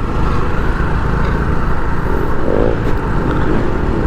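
Motorcycle riding through city traffic at night, heard from the rider's own camera mic: a steady, loud engine and road noise with heavy wind rumble on the microphone.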